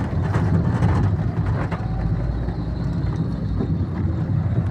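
Renault Kangoo van driving, heard from inside the cab: a steady rumble of engine and road with a few short knocks and rattles.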